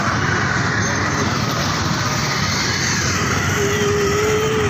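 Road traffic heard from a two-wheeler riding slowly through congested street traffic: a steady mix of engine and road noise.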